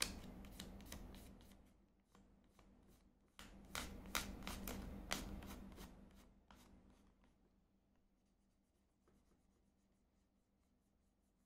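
Sponge rubbed over crayon-coloured paper in quick strokes, several a second, blending the colour. There is a burst of strokes, a short pause about two seconds in, then another burst that dies away about seven seconds in.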